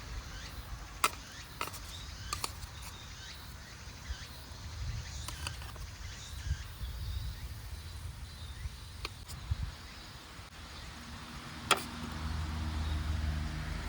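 Scattered sharp clicks and knocks, a dozen or so, over a steady low rumble. From about eleven seconds in, a low hum with several steady pitches joins and grows louder.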